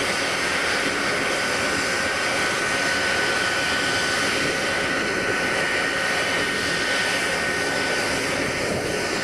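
Three turbojet engines of a jet-powered semi truck running steadily with the truck standing still: a constant rush with a thin, steady high whine over it, and no pops or bursts.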